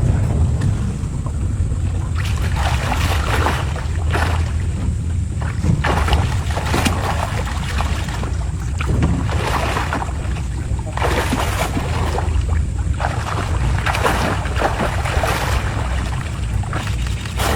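Rushing water and wind noise over a steady low rumble, surging every second or two.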